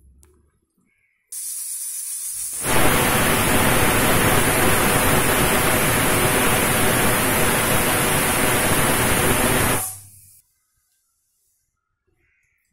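Aluminium pressure cooker whistling as steam blasts out past its weight valve. A high hiss starts about a second in and turns into a loud, steady rush of steam a second later. It holds for about seven seconds, then dies away quickly. This steam release is the cooker's whistle, the count used to time the cooking.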